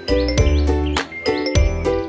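Background music: a bright, bell-like melody over a bass beat.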